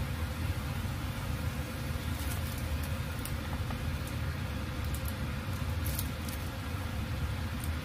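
Steady low rumble of kitchen background noise at the stove, with a few short faint high ticks.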